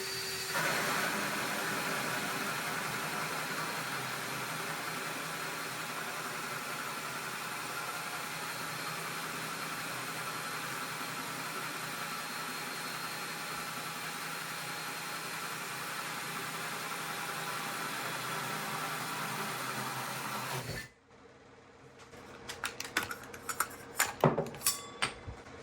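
Two cordless hammer drills, a Ryobi P213 and a Craftsman CMCD711, running together as hole saw bits cut through pallet wood: a steady motor whine with the rasp of the saw teeth, which stops abruptly about 21 seconds in. A few sharp knocks and clicks follow as the drills and wood are handled.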